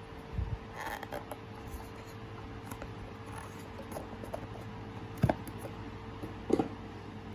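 Cardboard watch boxes and packaging being handled: scraping and rustling with small clicks, and two sharp knocks about five and six and a half seconds in.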